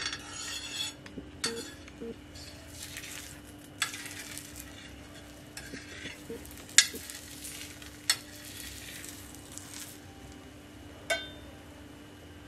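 Chapati frying in a little oil on a flat griddle pan, sizzling in stretches as a metal spoon spreads the oil over it. A few sharp clinks of the spoon against the pan, the loudest about seven seconds in.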